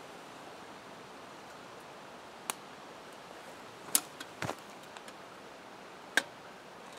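A few short sharp clinks and knocks of a metal cook pot and its lid as the pot is lifted off a wood-burning camp stove and its lid opened, over a faint steady hiss.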